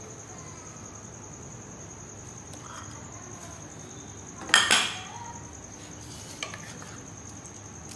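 A serving spoon and steel cookware clanking as masala is ladled from a bowl onto rice in a large pot. There is one loud clank with a short ring about halfway through and a lighter tap near the end, over a steady high thin tone.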